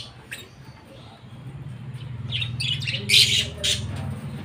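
Caged lovebirds giving short, harsh squawks: one just after the start, then a quick cluster of calls about two and a half to four seconds in. A low steady drone builds underneath.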